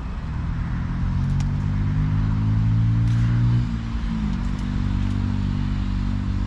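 Road vehicle engine running, a steady low hum whose pitch drops about four seconds in.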